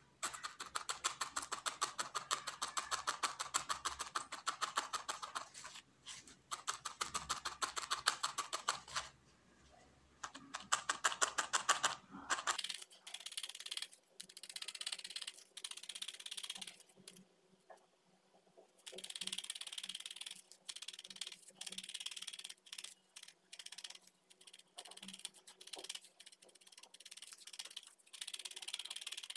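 Felting needle stabbing rapidly and repeatedly through a tuft of wool into a foam pad: a fast run of short, crisp pokes that stops briefly twice.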